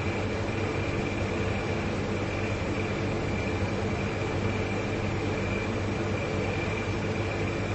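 Two large refrigerators running, compressors and motors giving a steady low hum with a faint high whine above.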